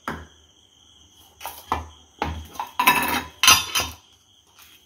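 Spoon and kitchen utensils clinking, knocking and scraping against a stainless steel mixing bowl in a series of short, irregular clatters as ingredients are spooned in.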